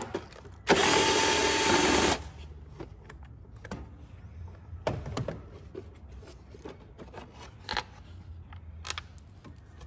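Power tool whirring for about a second and a half as it spins out the 10 mm bolt holding the plastic timing-belt cover. Then scattered light clicks and knocks as the plastic cover is worked loose and lifted off.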